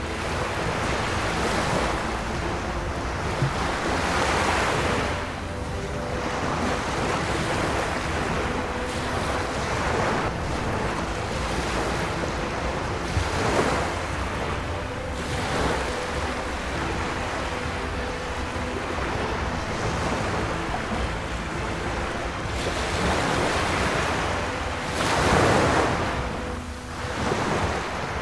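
Small waves washing onto a sandy shore, the surf noise swelling and fading every few seconds, with some wind on the microphone.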